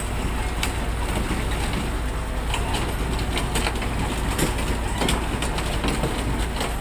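Komatsu mini excavator's diesel engine running steadily, with scattered sharp metallic clanks and knocks.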